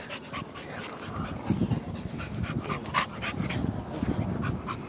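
A dog panting quickly with its mouth open, about three breaths a second.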